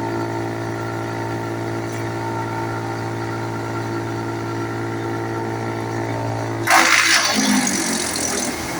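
Tractor-driven PTO disc wood chipper running steadily with a constant hum. About seven seconds in, a sudden loud rush of chipping noise lasting about two seconds as wood is fed in and cut, and the steady hum breaks up under the load.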